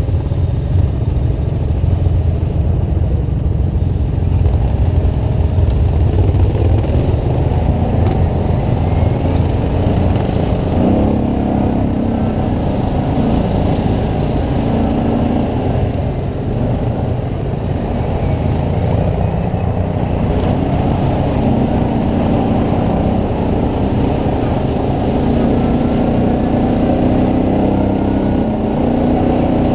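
ATV engine running steadily under way, with a heavy low rumble; its pitch shifts now and then with the throttle.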